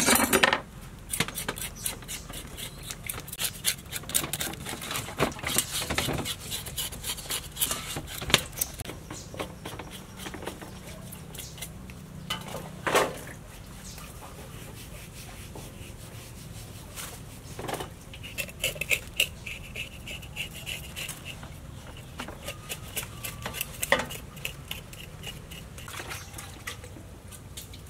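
Scattered clinks and knocks of a stainless steel basin and a knife as a fish is handled and cut, with a few louder clanks among them.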